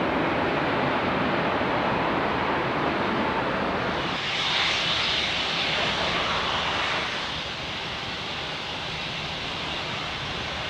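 Airliner engine noise on an airfield. It starts as a steady rush with the ATR 42-600 turboprop on the runway. About four seconds in it switches abruptly to the brighter hiss and whine of a taxiing Airbus twin-jet's engines, which eases off a few seconds later.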